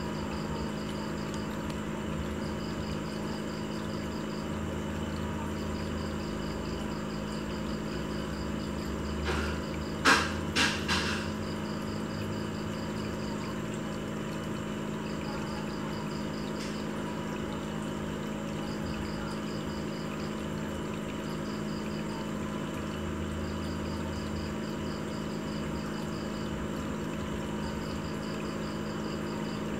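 Aquarium pump running with a steady hum and a water hiss, broken by three quick knocks about ten seconds in.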